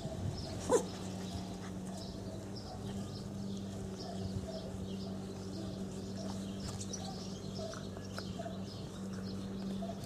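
Young puppies squeaking and yapping around a person's feet as they nip at shoes and trousers, with one short sharp yelp about a second in. Small high chirps run throughout over a steady low hum.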